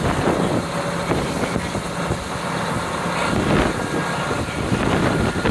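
Wind rushing in through the open window of a JR Hokkaido KiHa 40 diesel railcar under way, over the steady drone of its diesel engine and the train's running noise.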